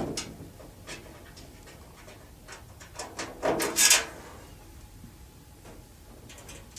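Small metal hardware being handled on the range hood's sheet-metal parts while a nut is put on by hand: scattered light clicks and scrapes, with a louder short hissing rush about three and a half seconds in.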